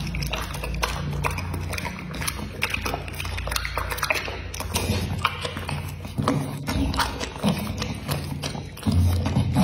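Pit bull chewing a mouthful of soft mango with wet smacking and clicking, then licking its lips and nose, with a steady low hum underneath.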